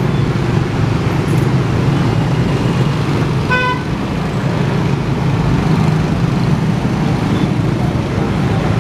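Loud, steady low rumble of heavy vehicles, with a single short horn toot about three and a half seconds in.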